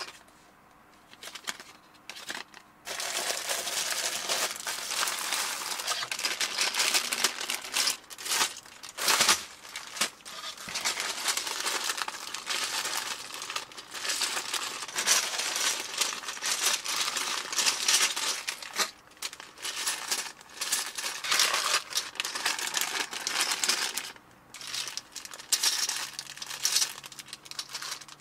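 Clear plastic zip-lock bags of building bricks crinkling as they are picked up, squeezed and set down, with the bricks inside shifting. It comes in bursts with short pauses, starting about three seconds in.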